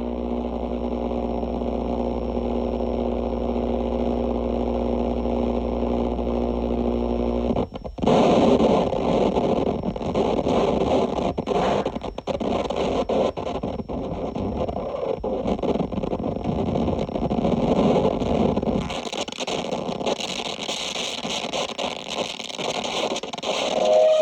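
Live harsh noise music: a steady droning chord of held tones over a low hum cuts off abruptly about seven and a half seconds in and gives way to dense, stuttering crackle and distortion. Near the end the bass drops away and a harsh hissing layer takes over.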